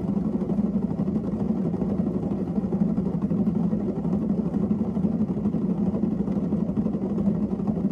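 Electric pottery wheel's motor running at a steady speed, giving a constant low hum while wet clay is pulled up on the spinning wheel head.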